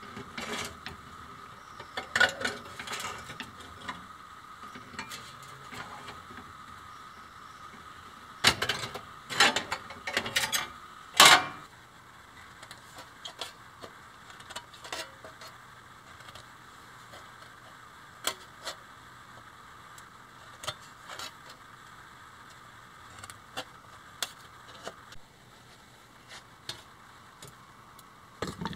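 Sheet metal being worked by hand: metal clanks and knocks in the first half, loudest around ten seconds in. Then aviation snips make short, crisp cuts, about one every half second to second, notching tabs around the rim of a thin sheet-metal disc.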